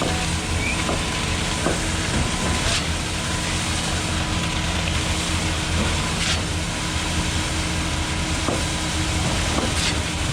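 Concrete pump truck running steadily, a low diesel drone under a loud mechanical hiss, with a sharp clack about every three and a half seconds.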